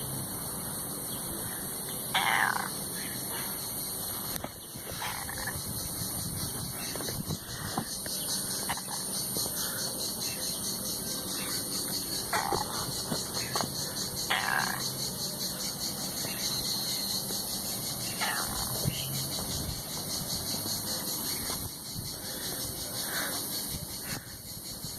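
A cat making short calls that fall in pitch, about six of them, several seconds apart.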